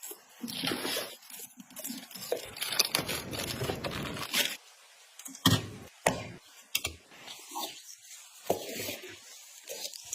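Hands handling PC parts and their packaging: irregular rustling and scraping with a few sharp clicks.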